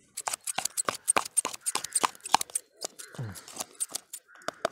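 Bait scissors snipping quickly and repeatedly in a small bait tub, a run of sharp irregular clicks about four or five a second, chopping up feeder bait (corn, worms and casters).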